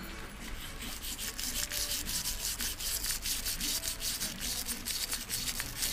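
Small wire brush scrubbing the inside of a lawnmower carburettor's metal float bowl in quick, repeated back-and-forth strokes, scouring out residue.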